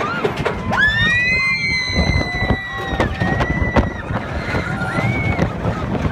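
Thrill-ride riders screaming in several long, high-pitched cries, the longest lasting about two seconds, over a steady rumble of wind on the microphone.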